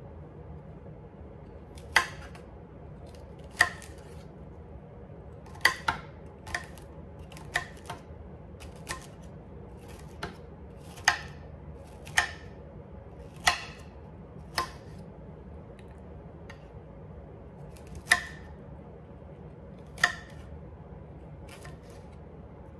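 Chef's knife dicing broccoli and cauliflower florets, the blade clicking sharply against a hard cutting board in uneven strokes, roughly one a second, with a pause of a few seconds shortly after the middle.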